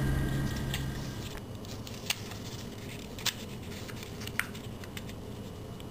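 A sheet of paper being folded by hand into a paper airplane: soft rustling with three sharp paper clicks spread over a few seconds as the folds are creased.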